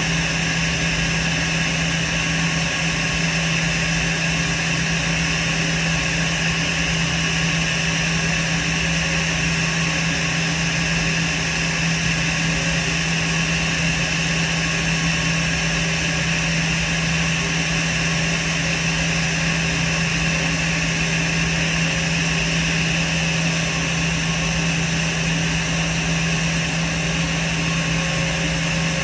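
Airbus A320's jet engines idling at the gate: a steady whine with a low hum under a broad rush of noise, unchanging throughout. The engines are being kept running because the APU is inoperative and ground power is not yet connected.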